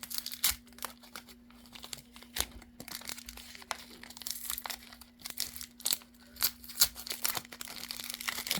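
Packaging being handled and unwrapped by hand: plastic wrap and foam crinkling, with tape being peeled and torn off in irregular crackles and short rips.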